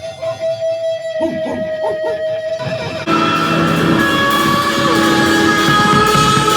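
Music: a guitar picking a repeating run of notes, then about three seconds in the full band comes in, much louder and denser.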